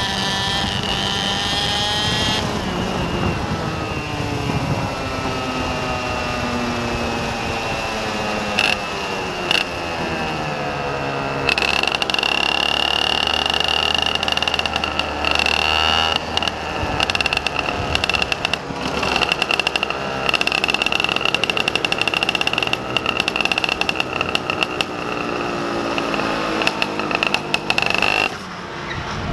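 Motorcycle engine running and changing speed, its pitch falling and rising repeatedly, with choppy rough noise over it. A steady high whine sets in about a third of the way through and holds until just before the end.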